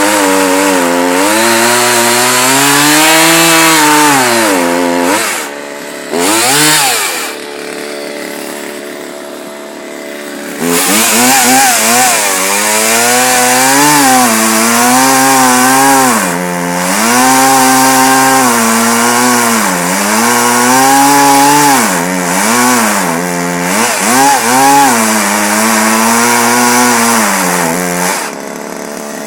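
Craftsman 42cc two-stroke chainsaw cutting into a block of firewood, its engine speed rising and falling again and again under load. About a third of the way in it drops to idle for a few seconds, with one quick rev, then cuts again and drops back near the end. The owner thinks the chain is tensioned a little too tight.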